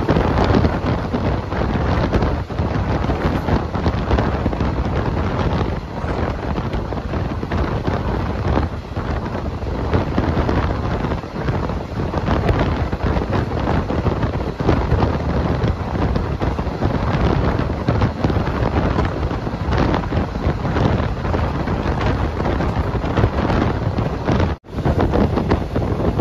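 Wind buffeting a phone's microphone: a loud, steady rushing noise heaviest in the low end, dropping out for a moment near the end.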